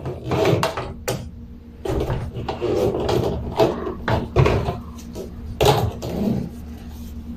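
Irregular knocks and clatter of a twin tub washing machine's hose being handled against the machine, over a steady low hum.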